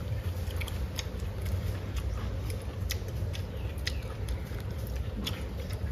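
Eating sounds at a meal: scattered light clicks of tableware and chewing, over a steady low rumble.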